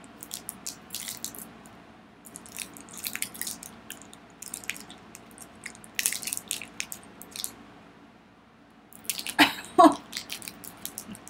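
A small plastic candy wrapper crinkling and tearing in the fingers as an individually wrapped cola candy is opened, in scattered short crackles. A short voice sound comes near the end.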